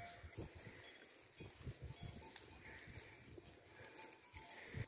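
Faint sounds of a grazing goat herd: scattered soft thumps and rustling, with a couple of faint, distant bleats.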